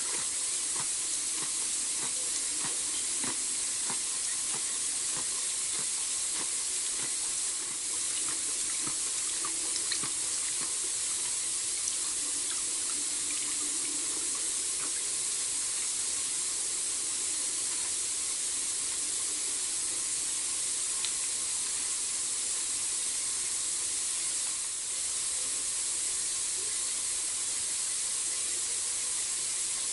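Steady, high-pitched hiss of night-time bush ambience, with faint scattered clicks and ticks through roughly the first ten seconds.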